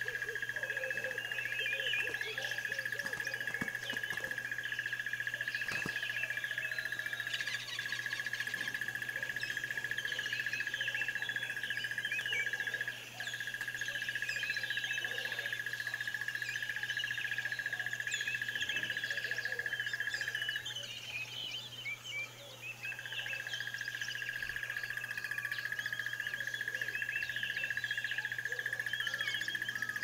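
Many birds chirping and twittering in overlapping short calls, over a steady high-pitched tone that drops out for about two seconds around two-thirds of the way through, and a faint low hum.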